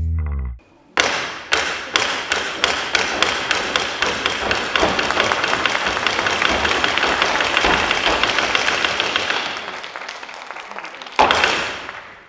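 Hyoshigi, the pair of hardwood kabuki clappers, struck for the curtain opening. Single sharp clacks about half a second apart quicken into a fast roll that fades away, then one loud clack near the end.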